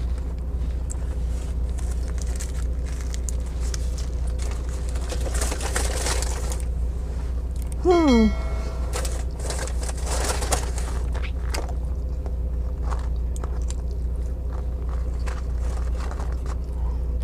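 Eating sounds: chewing and the crinkling of a paper burger wrapper, over a steady low hum. About halfway through comes a short closed-mouth 'mmm' that falls in pitch.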